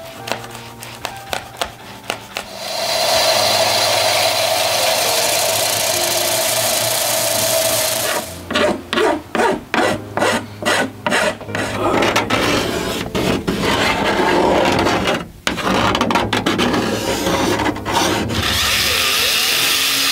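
Hand tools cutting and rasping a hardboard panel. A steady scraping cut runs for several seconds, then quick regular strokes at about two or three a second, then more continuous scraping.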